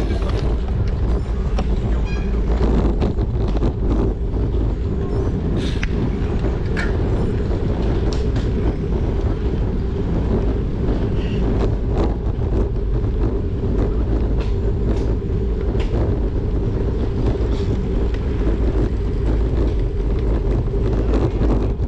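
Steady wind rushing over the microphone of a camera riding along on a bicycle, mixed with low road rumble and a few faint ticks.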